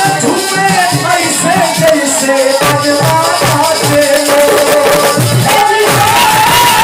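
Instrumental Indian devotional folk music of the kirtan kind: a melody line with sliding ornaments over a steady drum beat.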